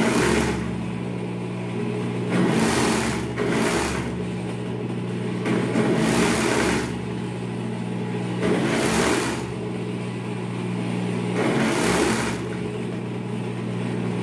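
Industrial overlock (serger) sewing machine stitching in about six short runs, each under a second, with a steady motor hum between them.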